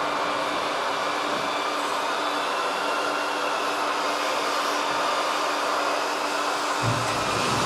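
Steady whine and hum of a radio-controlled O&K RH6 hydraulic excavator's pump and motors as it swings its arm and loads dirt into a dump truck, with a short low rumble near the end.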